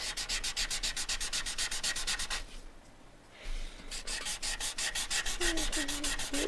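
Pencil shading on drawing paper: quick, even back-and-forth scratching strokes, about eight a second, with a pause of about a second in the middle.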